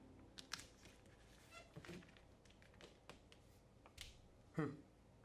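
Faint handling of black-and-white poly sheeting (panda film) against a wall: scattered soft clicks and taps as it is pressed and smoothed by hand, with a louder short thump about four and a half seconds in.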